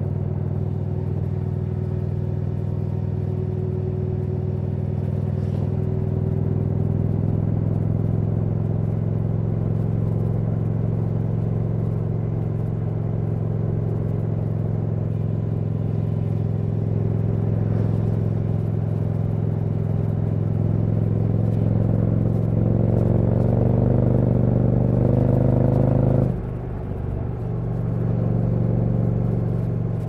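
Indian Challenger's PowerPlus V-twin through a Dr Jekill & Mr. Hyde aftermarket exhaust, heard from the rider's seat while cruising at steady speed. Near the end the revs climb for a few seconds under throttle, then the exhaust note drops away suddenly as the throttle is closed.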